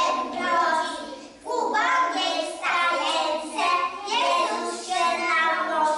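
Young children singing a Christmas carol, in phrases of held notes with two short breaks for breath.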